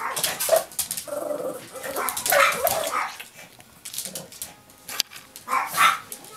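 Small long-haired dog barking in a string of short, sharp barks, a sign of the dog's food aggression.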